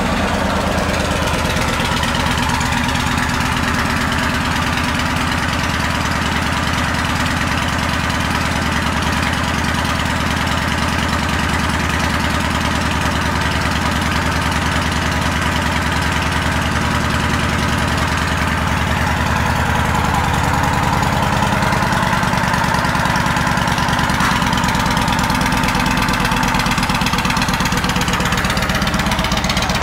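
2006 Yamaha XV17PC Warrior's 1670 cc V-twin idling steadily through aftermarket Bub exhaust pipes, just after being started. It grows a little louder in the last third.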